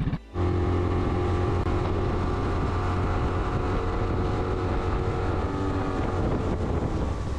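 Boat's outboard motor running at a steady pitch while under way, with wind and water noise. The sound drops out for a moment just after the start.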